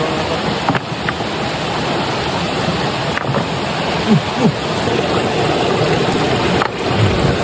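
River water rushing steadily over rocks, with a few faint knocks.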